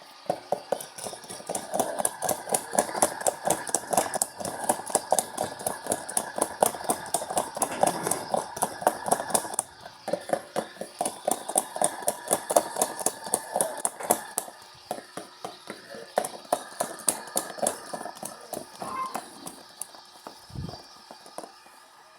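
LG washing machine working through a heavy-load wash cycle: a rapid, regular knocking as the machine churns the load. It breaks off briefly twice and stops about twenty seconds in.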